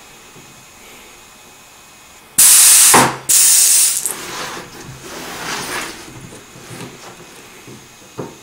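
Air-powered aluminium composite panel notching tool releasing compressed air: two loud hissing blasts about two and a half seconds in, trailing off into fainter hiss over the next couple of seconds. A short knock follows near the end.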